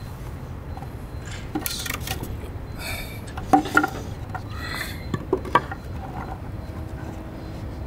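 Metal tools and hardware clinking and knocking while the stairs are being rebuilt, with a few sharper knocks in the middle, over a low steady rumble.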